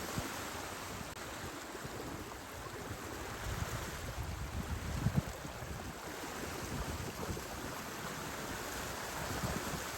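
Water washing along the hulls of a sailing catamaran under way, with wind buffeting the microphone in gusts, strongest about four to five seconds in.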